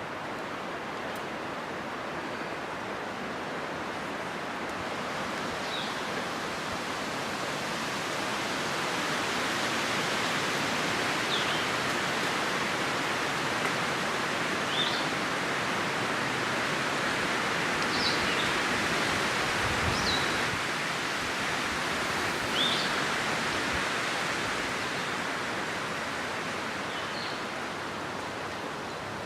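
Wind rushing steadily, swelling into a long gust through the middle and easing off near the end. A bird gives short high chirps every few seconds.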